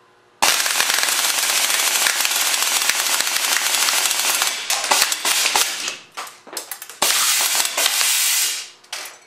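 .177 BB cannon firing full auto on 450 psi compressed air, a dense rattle of shots with BBs striking the pop can. A long continuous burst starts about half a second in and breaks up into sputtering shots after about four seconds, then a second steady burst comes around seven seconds, followed by a few last stuttering shots.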